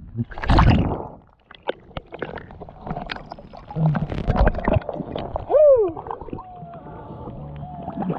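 Water gurgling, bubbling and knocking against an action camera held underwater as a swimmer rises to the surface, with a loud rush of water about half a second in and many scattered knocks.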